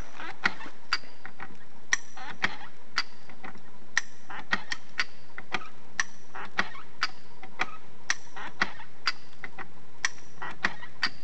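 Trewhella monkey grubber hand winch clicking as it is worked, sharp metallic clacks about twice a second, some with a short ring, as it hauls in the wire rope.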